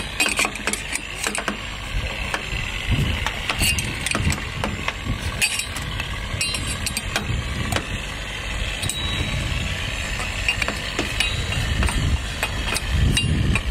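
Scattered light metallic clinks and clicks from a spanner and small mast fittings being handled, with nylon sheaves fitted into the aluminium gooseneck that joins the boom to the mast. A steady low rumble runs underneath.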